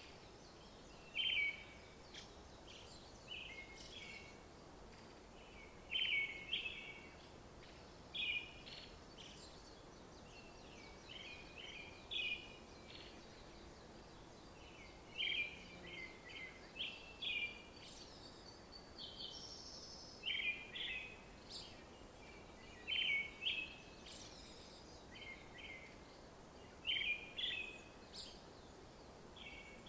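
Small birds singing in short chirping phrases that repeat every couple of seconds, over a faint steady background hiss.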